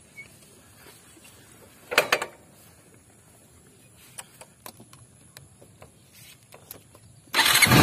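Small clicks and a short rattle from the motorcycle's controls being handled, then near the end the motorcycle engine starts with a sudden loud burst.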